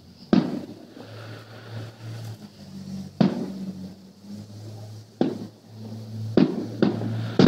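Fireworks aerial shells bursting: about five sharp booms at uneven intervals, each trailing off briefly, over a steady low hum.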